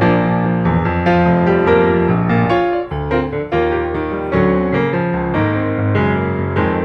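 Background piano music: a steady run of piano notes and chords.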